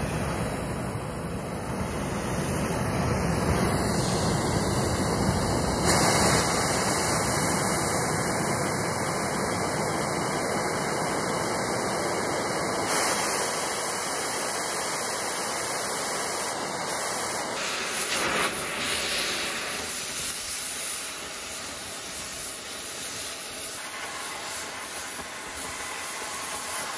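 Oxy-fuel cutting torch hissing steadily. It burns first as a yellow flame, then is turned up to a blue cutting flame, and near the end it is cutting into a steel railroad rail, where the hiss turns more uneven.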